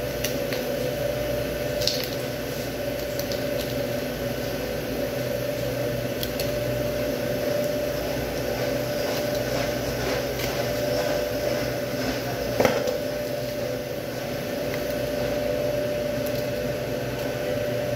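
A steady machine hum with one steady tone, under faint scrapes and clicks of a knife cutting meat away from beef rib bones; one sharper click about two-thirds of the way through.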